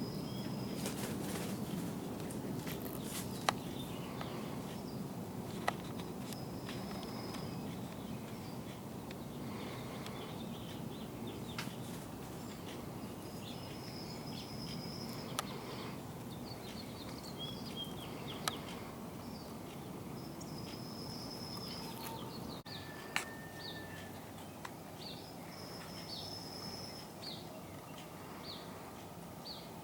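Outdoor ambience with songbirds calling: repeated short, high whistled notes and scattered chirps over a steady low background noise, with a few sharp clicks.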